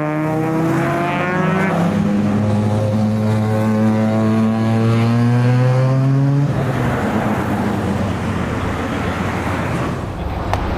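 Rotary-engined Mazda's exhaust droning at steady revs, pitch drifting slowly. About six and a half seconds in the tone stops abruptly and gives way to a rougher engine and road rumble.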